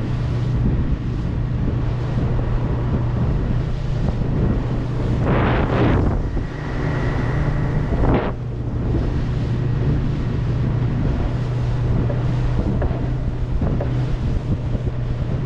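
A boat engine running steadily as the boat travels, with wind rushing over the microphone and two brief louder gusts about five and eight seconds in.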